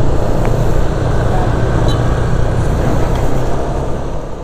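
Honda ADV150 scooter's single-cylinder engine running at a steady cruise, with wind and road noise from riding, fading slightly near the end.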